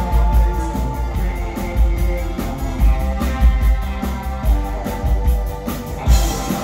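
A live rock band playing loud: a drum kit keeping a steady beat of about two kick-drum hits a second, under electric guitar and synthesizer keyboards.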